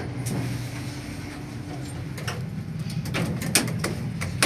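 Montgomery Kone elevator car hum, with a faint steady tone that stops about two seconds in. Several sharp clicks follow, the last near the end.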